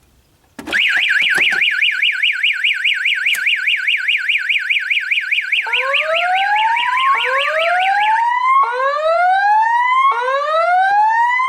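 Fire alarm evacuation signal sounding. Just over half a second in, a loud warbling tone starts, sweeping up and down about eight times a second. From about six seconds in, a slow rising whoop repeats roughly every second and a half, overlapping the warble until the warble stops about eight seconds in; this is the alert tone that comes before the spoken evacuation message.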